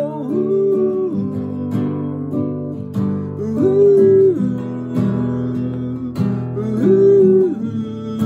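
Nylon-string classical guitar strummed in a steady rhythm, with a man singing three long wordless "oh" notes about three seconds apart.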